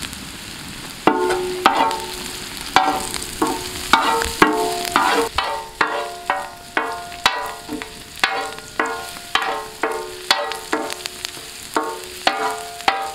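Shallots, curry leaves and green chillies sizzling in oil on a wide metal pan. From about a second in, a metal spoon stirs them, striking and scraping the pan just under twice a second, and the pan rings briefly after each stroke.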